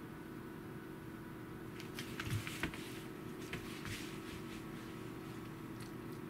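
A Pembroke Welsh corgi and a black cat play-fighting: a short flurry of scuffles and taps of paws and claws on a foam mat floor, about two to four seconds in, over a steady hum.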